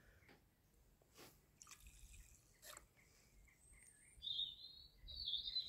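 Near quiet, with a few faint scattered clicks and, about four and five seconds in, two short high warbling chirps from a small bird.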